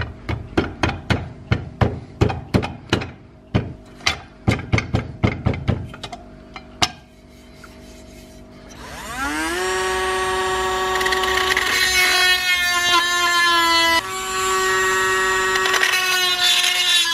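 A quick run of sharp knocks or strokes, about two or three a second, for the first six seconds. Then a handheld power drill spins up with a rising whine and runs steadily as it bores into a wooden handle, stopping and starting again briefly about fourteen seconds in.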